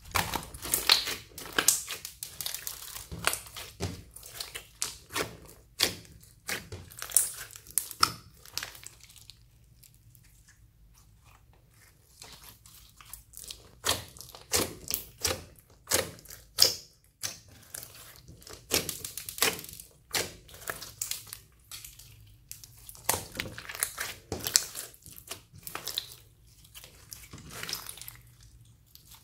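Bead-filled clear slime being stretched, folded and squeezed by hand, making sticky squelches and quick crackling clicks and pops in irregular clusters, with two short lulls.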